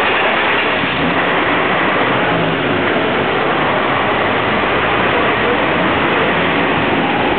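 Steady city street traffic noise: the engines of cars and a bus running, heard as a dense, unbroken wash.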